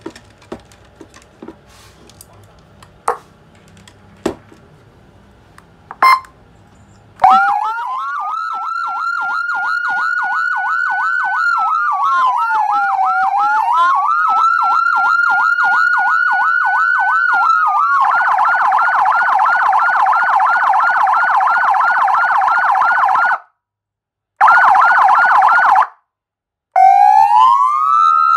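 A few sharp clicks, then an electronic siren starts about seven seconds in. It gives a fast warbling wail whose pitch glides up, dips and rises again, then switches to a quicker, level warble. It cuts out abruptly twice and comes back with a rising wail near the end.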